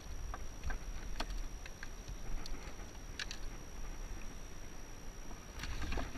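Handling noise: scattered light clicks and taps as a caught bream is unhooked and dropped into a plastic bucket, with a denser run of knocks near the end as a wooden board is laid over the bucket, over a low rumble.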